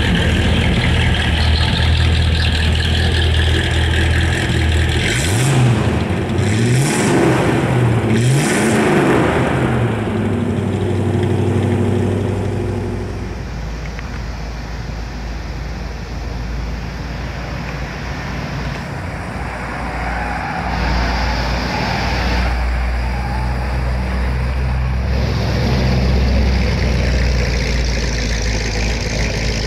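1957 Chevrolet Bel Air's 283 V8, with three two-barrel Rochester carburetors and performance dual exhaust, idling. It is revved three times in quick succession about five to nine seconds in, then settles back to a steady idle.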